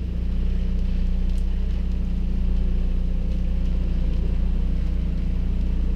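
Fishing boat's motor running steadily at slow trolling speed, a low even hum.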